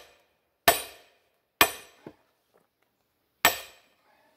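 A sledgehammer striking the back of a splitting tool set into a firewood round: three sharp metal-on-metal clangs, each ringing briefly. The first two come close together and the third follows after a pause of about two seconds.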